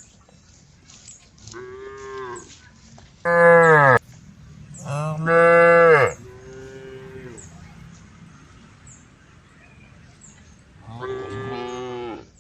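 Cows mooing: about five long calls. The two loudest come close together a few seconds in, and a softer call follows near the end.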